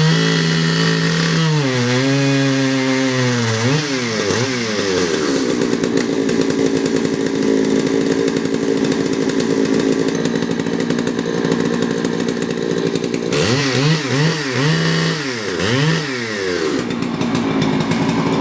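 Chainsaw cutting into a black walnut trunk: the engine revs up and down, then holds a steady, loaded pitch for several seconds in the cut. Near the end it revs several more times.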